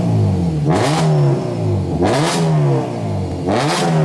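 Car engine being free-revved: three sharp blips, each climbing quickly and falling back to idle, about every second and a half.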